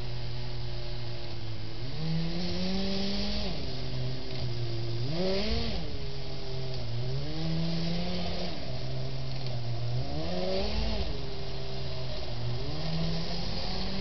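Kyosho Blizzard RC snowcat's electric drive motors and gearboxes whining; the pitch rises and falls back about five times as it speeds up, slows and turns.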